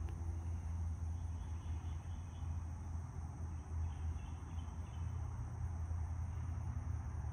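Steady high buzzing of insects over a low, steady rumble, with a few faint high chirps about two to five seconds in.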